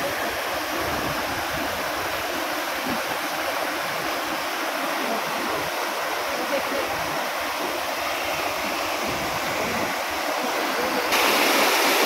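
Steady rush of a waterfall and flowing stream, jumping louder about eleven seconds in.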